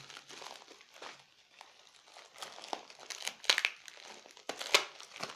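Plastic polythene wrapping being crinkled and pulled off a new pair of headphones by hand, in irregular crackles with louder rustles about three and a half seconds in and a sharp crinkle near the end.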